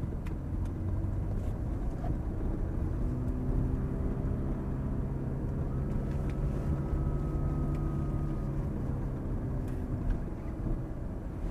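Ferrari F430's V8 engine running at low revs, heard from inside the cabin as the car rolls along slowly, its pitch rising a little in the middle and easing off again.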